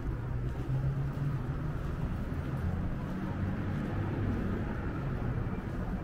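Steady low rumble of road traffic on a city street, with no distinct single event.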